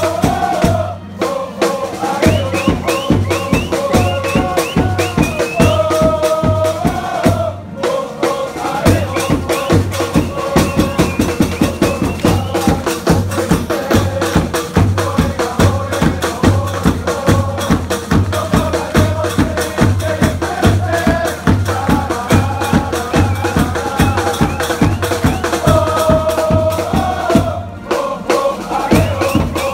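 Football supporters singing a chant together to a steady bass drum beat, the tune repeating, with short breaks between verses.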